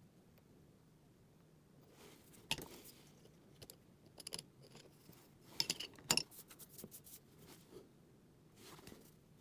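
Small hard tools and objects being handled and set down during close hand work: a scattered run of light clicks and clinks, loudest about two and a half seconds in and again around six seconds.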